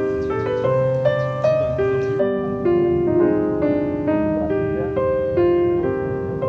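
Background piano music: a melody of struck notes and chords, each fading as it rings, with a new note about every half second.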